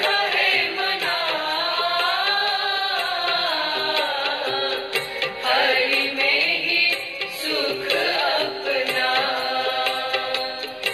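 Hindu devotional bhajan music: a wavering, gliding melody line over struck percussion.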